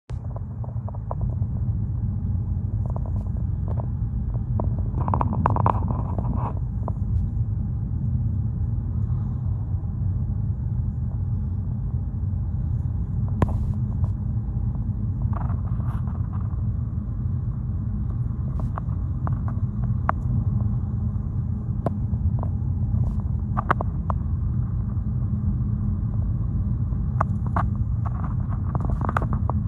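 Steady low rumble of a car's engine and road noise inside the cabin, cruising at about 60 mph and 2,000 rpm, with scattered light clicks and rattles. The car is in limp mode with its engine management light on.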